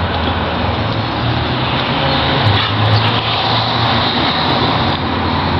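Street traffic: a motor vehicle's engine running steadily close by, swelling a little about halfway through.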